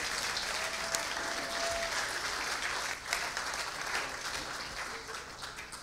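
Congregation applauding, the clapping dying away over the last couple of seconds.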